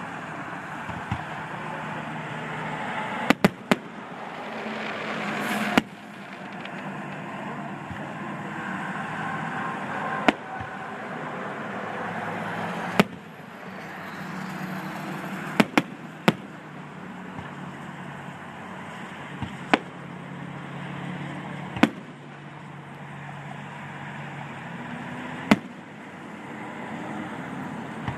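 Aerial fireworks shells bursting overhead: about a dozen sharp bangs at irregular intervals, some in quick runs of two or three, over a steady background noise.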